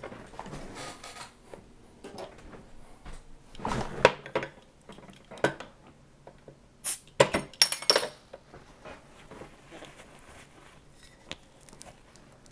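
A hand-held bottle opener prying the metal cap off a glass cider bottle: scattered clinks and knocks of metal on glass, with a cluster of sharp clicks about seven to eight seconds in.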